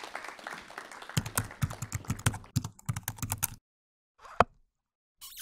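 Computer keyboard typing sound effect: a quick run of key clicks lasting about two and a half seconds that stops suddenly, then a single click about a second later.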